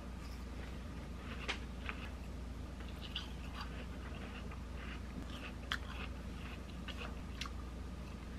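Faint chewing and biting of juicy watermelon eaten with a fork, with scattered light clicks of the metal fork on the plastic container, over a steady low hum.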